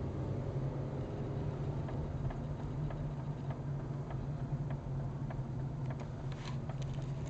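VW Golf Mk VI on a cold start: the engine running steadily with a series of light clicks, about one or two a second, coming more often in the second half. The VW dealer puts the clicking down to the fuel system's leak-detection self-test, which is normal.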